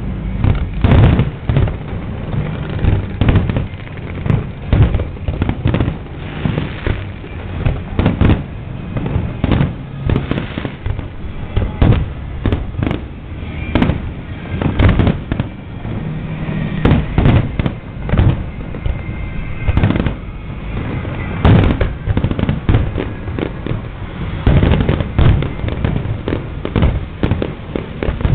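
Fireworks display: aerial shells bursting in a dense, continuous barrage, several loud bangs a second overlapping one another.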